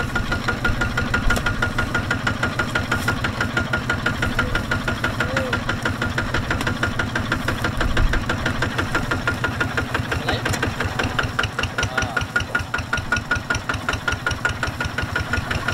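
Kubota walking tractor's single-cylinder diesel engine running steadily, with a fast, even knocking beat, while the tractor is bogged in mud.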